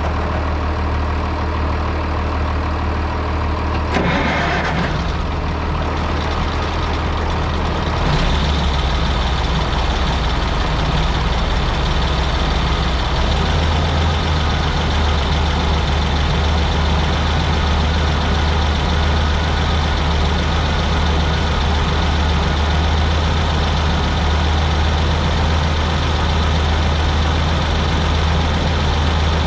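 Engine of heavy farm harvest machinery running steadily, with a brief rush of noise about four seconds in and a step up in loudness about eight seconds in.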